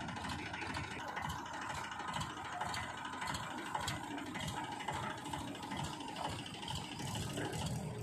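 Diesel engines running steadily: a Powertrac Euro 50 tractor close by and a JCB 3DX backhoe loader just behind it.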